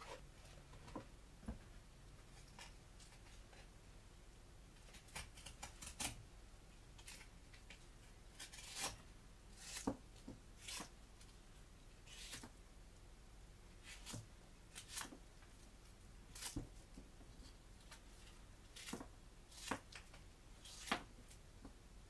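SOG Salute folding knife's clip-point blade slicing through corrugated cardboard: a series of short, faint cutting strokes, irregularly spaced a second or two apart, starting about five seconds in.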